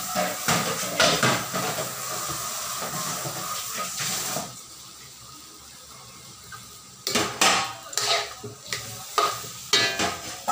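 Pork sizzling in a wok while a metal spatula scrapes and clanks against the pan in stirring strokes. The sizzle drops suddenly about four seconds in, and from about seven seconds on come sharp, separate metal scrapes and clinks of the spatula on the wok.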